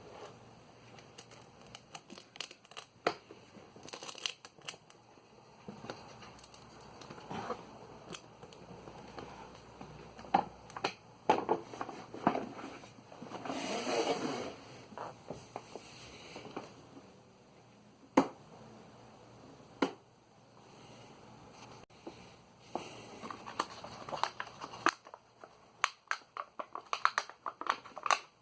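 Hands handling small parts and material: scattered clicks and knocks mixed with crinkling and rustling, with a longer rustle about halfway through and a quick run of clicks near the end.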